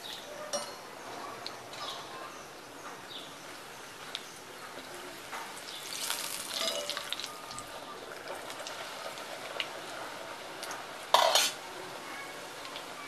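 A bhatura deep-frying in hot oil in a cast-iron kadhai, sizzling steadily, with a perforated slotted spoon scraping and tapping in the pan. The sizzle swells about six seconds in as the spoon works oil over the bhatura, and a loud knock comes about eleven seconds in.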